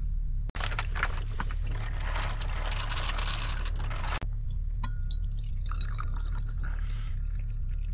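Pour-over coffee being made: a steady pouring hiss for about four seconds, then a softer pour of brewed coffee from a glass server into a glass, with light clinks of glass. A low, steady rumble runs underneath.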